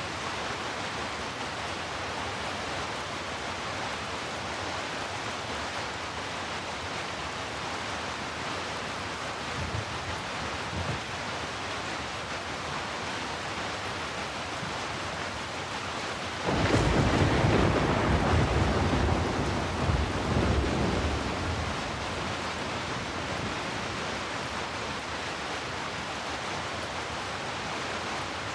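Steady heavy rain. A little past halfway a sudden clap of thunder breaks in and rumbles for about five seconds, after two brief faint low rumbles a few seconds earlier.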